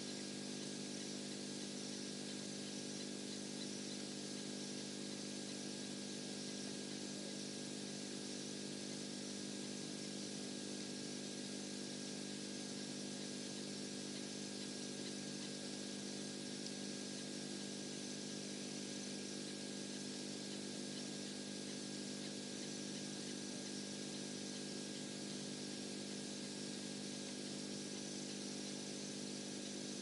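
Steady machine-like hum made of several low tones, with a thin high tone and a constant hiss over it; it does not change at all.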